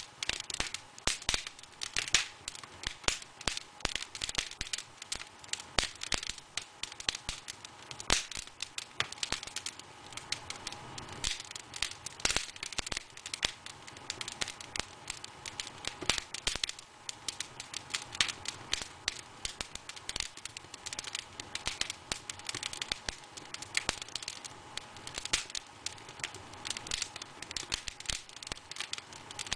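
Burning wood fire crackling, with many sharp, irregular pops.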